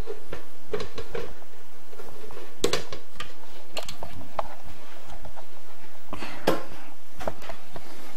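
Irregular clicks, clanks and knocks of a portable propane grill's metal grate and frame being handled and moved, with a few sharper knocks around the middle and about six and a half seconds in.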